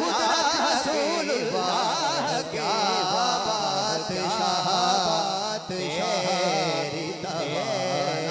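A man singing a naat, an Urdu devotional poem, solo through a microphone and PA, in a wavering, heavily ornamented melody.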